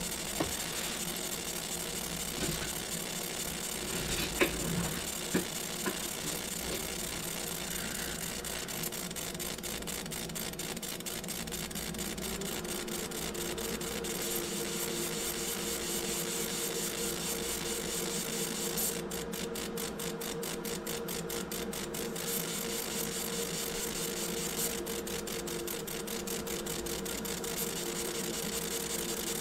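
Laser engraver at work marking a copper coin: a steady whir and hiss, with a few light clicks in the first seconds. A steady hum sets in about halfway, and a fast buzzing flutter comes in twice near the end.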